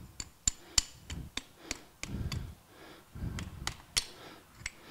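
Hammer tapping a socket used as a driver to push a new oil seal down into a Dixie Chopper mower's spindle housing. The taps are sharp, roughly ten of them at an uneven pace.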